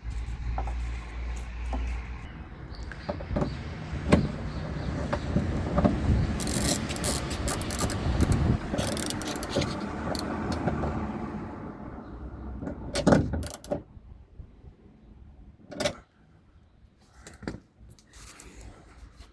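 Hands working inside a car door: a continuous rustle of handling with many small clicks and knocks of metal and plastic parts, which dies down about two thirds of the way through to a few separate clicks.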